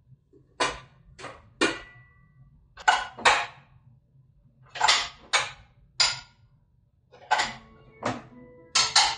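Utensils and cookware clinking and knocking at a kitchen counter: about a dozen sharp strikes in irregular groups of two or three, some ringing briefly like metal or ceramic.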